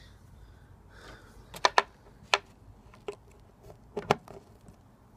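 Sharp plastic clicks and taps from a syringe with a plastic vial adapter being handled and pressed onto a small glass medication vial: about six clicks, two of them in quick pairs.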